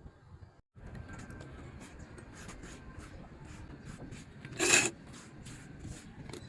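Hand scraping and rubbing on the rusty steel of a cleaver blade: a steady run of uneven short scrape strokes, with one louder scrape about four seconds in.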